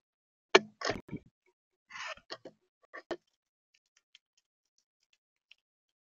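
Irregular sharp clicks, knocks and taps on a bird feeder, with a short scratching burst about two seconds in and fainter sparse ticks after three seconds, as of a visitor landing and picking at the seed.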